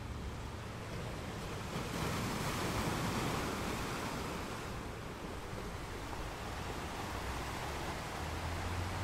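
Steady rushing noise that swells about two seconds in and slowly eases off again.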